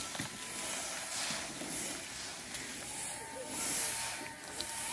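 A large pan of dates at a rolling boil in water, a steady hiss that swells and fades, with a few faint knocks from the stirring paddle. The dates are being boiled to make chhuhara (dry dates).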